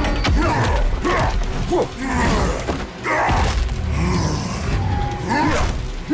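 Animated action soundtrack: music playing under mechanical robot sound effects, with clanks and thuds.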